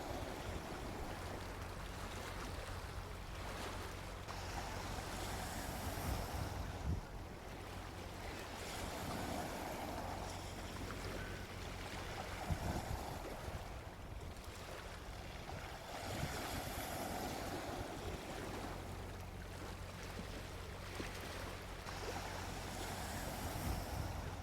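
Gentle ocean waves washing onto a beach. Each wash swells and fades, with a new one every four seconds or so.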